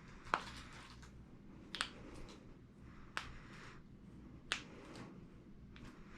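Four sharp joint cracks during a chiropractic adjustment, about a second and a half apart, each a single short pop.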